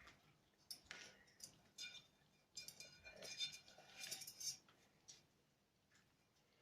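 Dishes, glassware and cutlery clinking as they are handled and set down, in a short cluster of clinks about a second in and a longer run of ringing clinks from about two and a half to four and a half seconds in.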